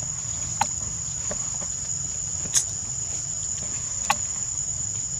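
Steady high-pitched drone of insects in a chorus, with three short sharp clicks about two seconds apart and a low steady rumble underneath.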